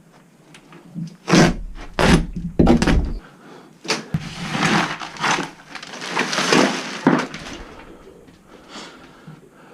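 A few heavy knocks and bangs in the first three seconds, followed by a few seconds of scraping and rustling and a scatter of lighter clicks.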